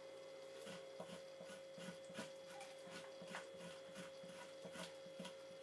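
Faint, irregular scraping strokes of a dull knife worked hard over the flesh side of a fresh fox hide, removing membrane, fat and meat, over a faint steady hum.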